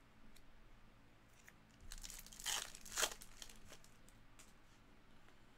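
Trading cards rustling and sliding against each other as a stack of chrome cards is flipped through by hand, with two louder swishes about two and a half and three seconds in.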